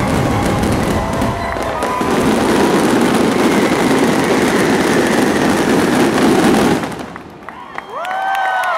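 Fireworks finale: a dense, continuous crackle of many shells bursting at once, cutting off abruptly about seven seconds in. Near the end the crowd starts cheering and whooping.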